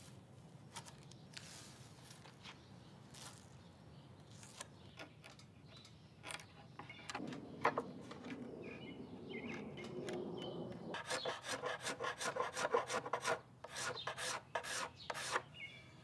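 A chisel pares a thin maple shim flush with a wooden tabletop. It starts quiet with a few small clicks, then comes wood scraping and shaving, turning to quick, repeated scraping strokes in the second half.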